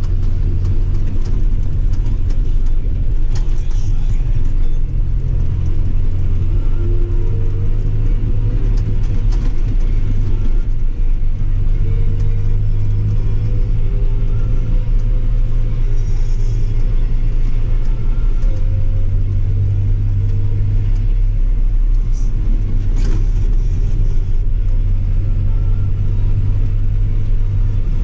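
John Deere 6125R tractor's 6.8-litre six-cylinder diesel engine running steadily: a deep drone whose pitch drifts slightly up and down. A couple of brief sharp clicks stand out over it.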